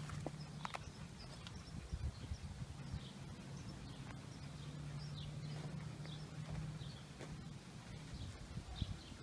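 Outdoor ambience: faint birds chirping now and then, footsteps and handling thumps on dry dirt, and a low steady hum that fades out about seven seconds in.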